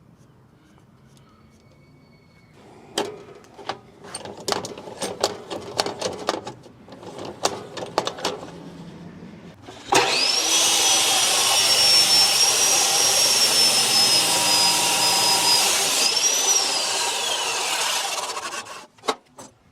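Metal clicks and knocks as the threaded rod is positioned, then a chop saw starts suddenly and cuts through 5/16-inch steel threaded rod with a loud steady grinding noise and a high motor whine for about six seconds. Near the end the whine rises briefly, then falls away as the motor winds down after the cut.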